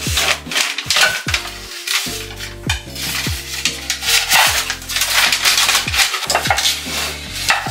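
Dishes and cutlery clattering and clinking in quick, irregular strikes, over background music.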